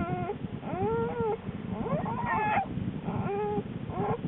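Newborn black bear cubs crying: about five short, wavering, high squalls, one after another, each rising and falling in pitch. A low rapid pulsing runs underneath.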